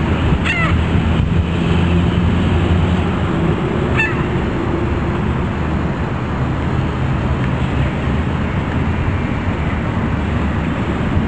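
Outdoor ambience: a steady low mechanical hum and rumble, with two brief bird calls, one near the start and one about four seconds in.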